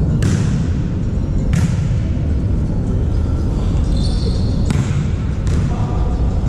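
A volleyball being struck, four sharp slaps over a few seconds, over a constant low rumble in a sports hall.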